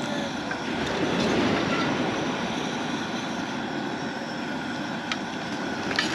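Pot of red rock crabs at a hard boil, a steady bubbling rumble, with a couple of faint clicks near the end.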